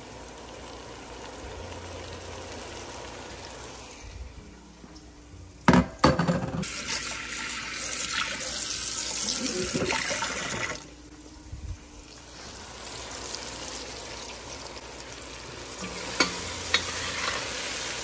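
Onions and duck giblets sizzling in a Dutch oven. About six seconds in there are a few sharp knocks, then a tap runs water into a bowl in a stainless steel sink for about four seconds and cuts off sharply. After that the sizzling builds again as a spoon stirs the pot, with a couple of clicks near the end.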